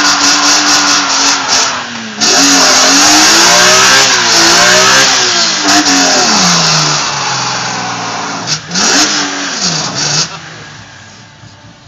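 Car engine held at high revs during a burnout, the rear tyres spinning and smoking on the pavement. The revs dip briefly about two seconds in, waver, fall away around six seconds, rise once more near nine seconds and then stop about ten seconds in.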